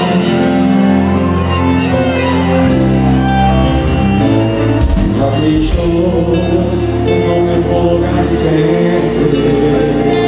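Live forró band music played through a stage sound system: accordion over drums and keyboards, with a steady beat.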